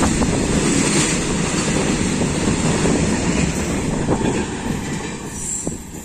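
A goods train of BOXN open wagons rolling past, its wheels rumbling and clattering steadily on the rails. The noise fades about five seconds in.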